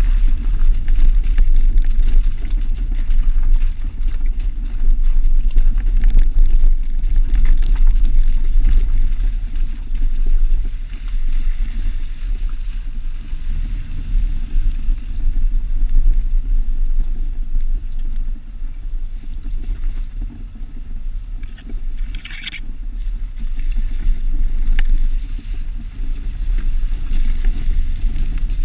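Jeep driving, picked up by a camera on the outside mirror: a steady low engine and tyre rumble under gusty wind buffeting on the microphone. A brief high squeak cuts in about two-thirds of the way through.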